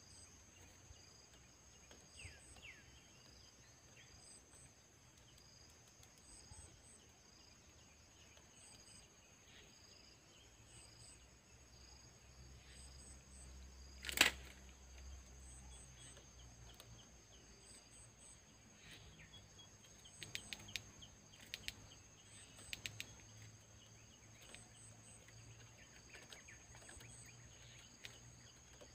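Quiet outdoor ambience of insects trilling in a steady, regularly repeating pattern. A single sharp knock about halfway through is the loudest sound, and a quick run of faint clicks follows several seconds later.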